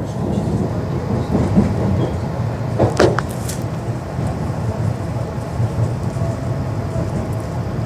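Tram running between stops, heard from inside the car: a steady low rumble of wheels on rails, with one brief sharp clack or screech about three seconds in.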